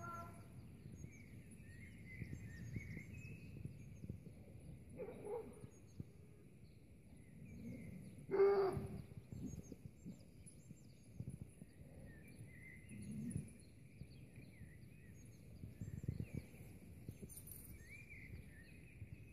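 Birds chirping in the background over a low rumble, with a short animal call about five seconds in and a louder, higher yelp about eight and a half seconds in.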